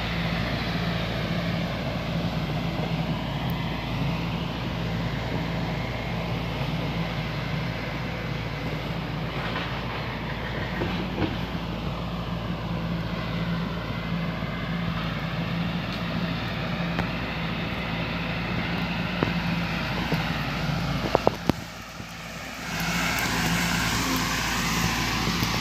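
Sumitomo hydraulic excavator's diesel engine running steadily, with a hiss above the low engine note. Near the end the sound dips for about a second, with a few sharp clicks, then comes back louder.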